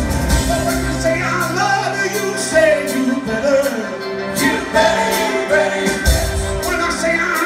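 Rock band playing live, with a man singing lead over electric guitar, drums and sustained chords, heard from the audience in a large hall.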